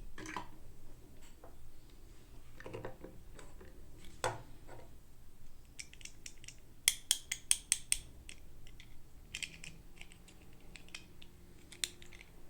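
Small plastic toy pieces and packaging being handled: scattered light clicks and scrapes, with a quick run of sharp clicks about halfway through and one more near the end.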